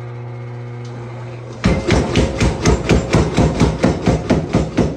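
Tire-type mechanical power hammer humming steadily while idle, then, about a second and a half in, its ram starts pounding rapidly on a wooden stick held under the die, about five blows a second, flattening the wood's end.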